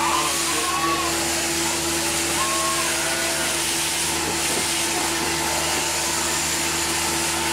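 Electric sheep-shearing machine running with a steady, even hum.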